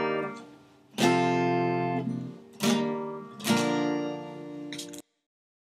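Strummed acoustic guitar playing the song's closing chords: three strokes, each left to ring, then the sound cuts off suddenly about five seconds in.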